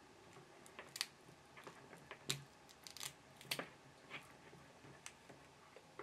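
Wire stripper cutting and pulling the jacket off RG6 coax cable: scattered small clicks and rustles of the tool and cable, the sharpest about a second in and just after two seconds.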